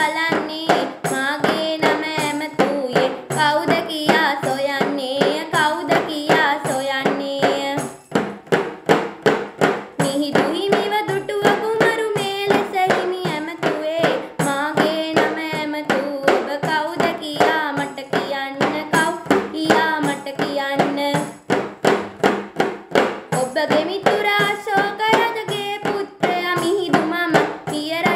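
A young girl singing a song solo while beating a tambourine in a steady rhythm with her hand. The singing breaks off twice, about eight seconds in and again after twenty seconds, leaving a couple of seconds of tambourine beats alone.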